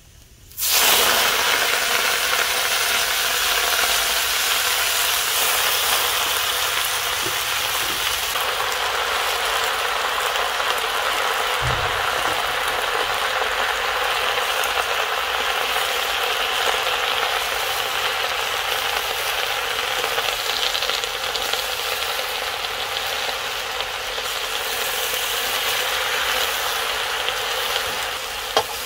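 Amaranth greens tipped into hot oil in an iron kadai set off a sudden loud sizzle less than a second in, which carries on steadily as they are stirred with a wooden spatula. A single dull thump comes about halfway through.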